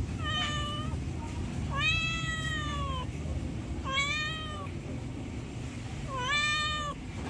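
Hungry stray domestic cat meowing for food: four meows roughly two seconds apart, the second one long and drawn out, dropping in pitch at its end.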